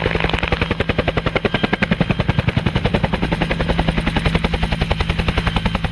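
Bell UH-1 Huey helicopter flying low, its two-blade main rotor beating in a steady rapid thud of about ten beats a second over a steady low hum.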